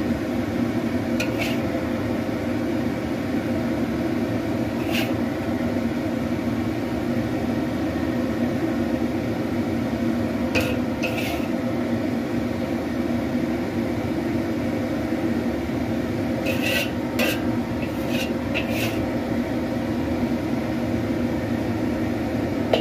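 A metal spatula clinks and scrapes against a ceramic plate a few times as food is served onto it, over a loud, steady whirring hum.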